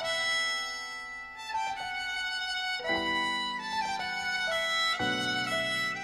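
Background film-score music: a slow violin melody over held chords that change every one and a half to two seconds.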